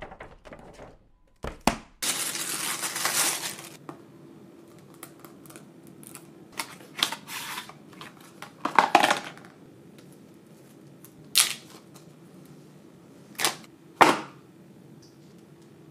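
Clear plastic bag around an iPhone box rustling and crinkling loudly as it is opened. Then scattered sharp taps and knocks as the cardboard box is handled, with single knocks near the end.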